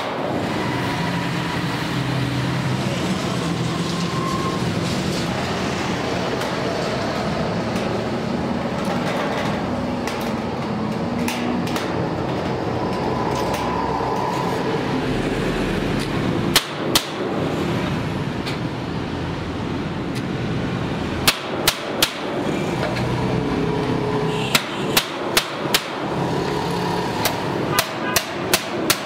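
Hammer striking a cold chisel into galvanized steel sheet: sharp metallic strikes, a pair about halfway through and then short quick runs of three or four over the last several seconds, over a steady background noise.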